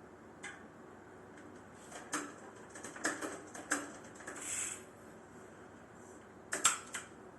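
A few scattered light clicks and knocks over faint room tone, with a brief soft hiss near the middle.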